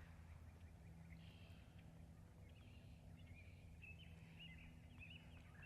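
Near silence with faint birdsong: short chirps and trills from small birds, over a low steady hum.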